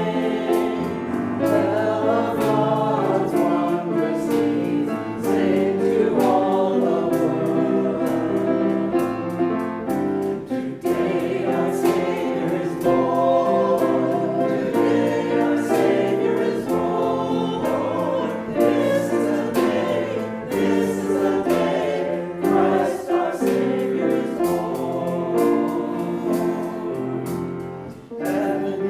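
Church choir singing a sacred piece, many voices moving together through sustained notes.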